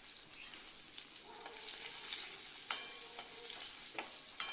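Green chilli pieces sizzling in hot oil with mustard seeds and cumin in a kadai: a tadka tempering frying, swelling a little about halfway through. A few sharp clicks come near the end as a steel ladle stirs against the pan.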